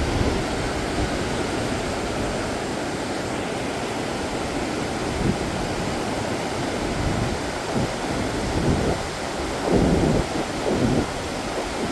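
Steady rushing noise of a swollen river running high with floodwater after days of heavy rain. Wind buffets the microphone in low gusts near the end.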